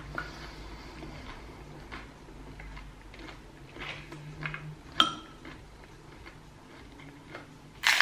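Metal spoon softly clicking against a ceramic bowl as hard taco shells are filled, with one sharp ringing clink about five seconds in. A loud crunch starts right at the end as a hard taco shell is bitten into.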